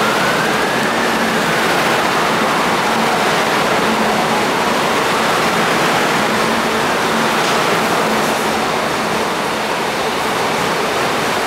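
MTR metro train running through a station platform without stopping: a loud, steady rush of wheel and running noise. Over it a whine glides up and down in pitch about twice.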